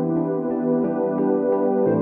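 Intro music: sustained chords that change about once a second.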